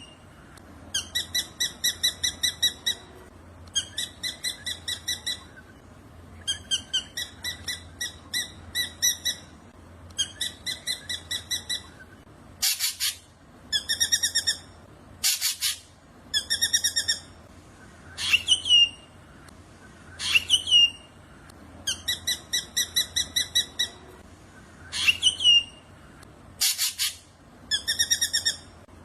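Black drongo singing: repeated phrases of fast, buzzy chattering notes about a second or two long, broken by rising whistled notes that bend over at the top. Three loud, harsh rasping calls, the loudest sounds here, come about 13 s, 15 s and 27 s in.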